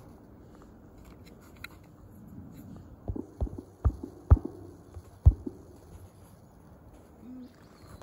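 A handful of dull, low thumps at uneven intervals over a faint steady outdoor hiss, clustered in the middle of the clip, the loudest about four and five seconds in.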